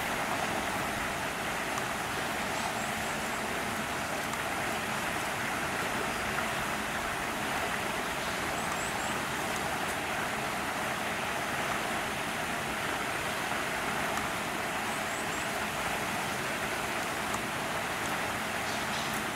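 Steady outdoor rushing noise at an even level, with no distinct events.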